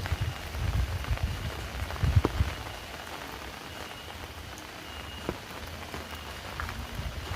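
Heavy rain falling steadily with scattered drop ticks, and a run of low thumps in the first couple of seconds, loudest about two seconds in.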